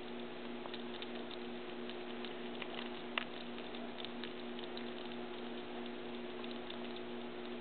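Baby squirrels gnawing nuts: scattered small crunching clicks, with one sharper crack about three seconds in, over a steady hum.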